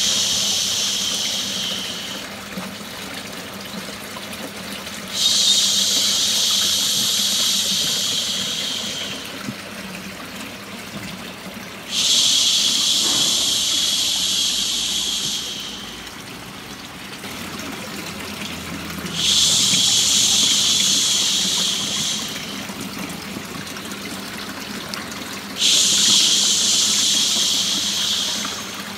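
A drawn-out 'shhh' shush, the kind used to lull a baby to sleep, repeated about every seven seconds. Each shush starts abruptly, lasts three to four seconds and fades out, over a steady background of running water.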